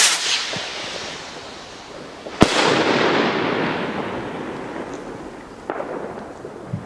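2-inch Alpha shell rocket: its climbing hiss dies away, then about two and a half seconds in the shell bursts with one sharp bang that echoes away over several seconds. A faint knock follows near the end.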